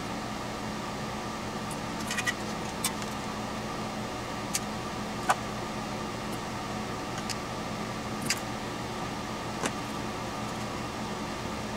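Scattered light clicks and clinks of small metal parts, wire terminals and tools, being handled during wiring, about eight in all with the sharpest near the middle, over a steady background hum.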